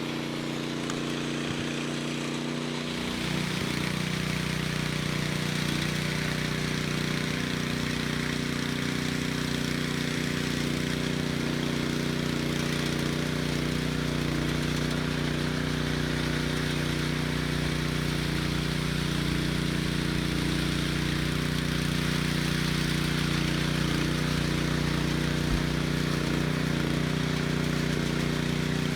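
Gasoline engine of a concrete power trowel running steadily, its speed stepping up about three seconds in.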